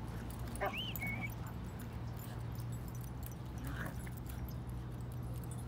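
A dog gives one short high-pitched whine about a second in, rising and then holding briefly, over a steady low background hum.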